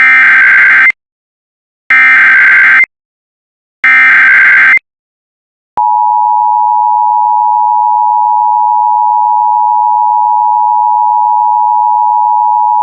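Emergency Alert System alert opening: three loud one-second bursts of SAME header data tones, about two seconds apart, then the steady EAS attention tone starting about six seconds in. The sequence signals an incoming emergency alert broadcast.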